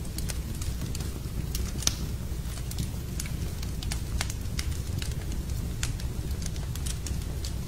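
Wood fire burning in a fireplace, crackling with irregular sharp pops over a steady low rumble; the loudest pop comes about two seconds in.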